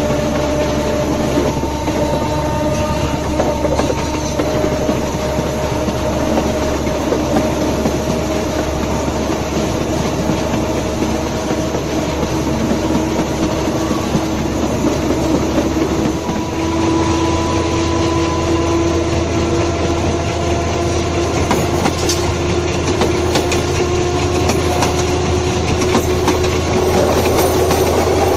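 A railway car's bogie wheels running along the rails, heard close from beneath the car: a steady rolling rumble and rail noise. Faint whining tones in it rise slowly in pitch.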